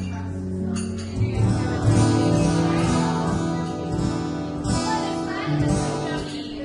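A live band playing a song: strummed acoustic guitar chords over held low bass notes, in a gap between sung lines.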